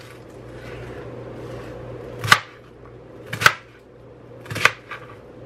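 Chef's knife chopping cabbage on a plastic cutting board: three sharp knocks of the blade hitting the board, about a second apart, in the second half.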